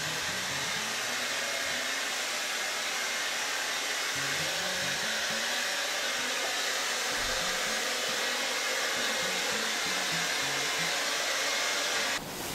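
Hand-held hair dryer blowing steadily, drying a freshly permed punch-perm haircut, then switched off abruptly about twelve seconds in.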